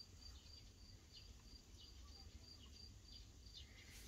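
Near silence: room tone with a faint, high-pitched chirp repeating about three times a second.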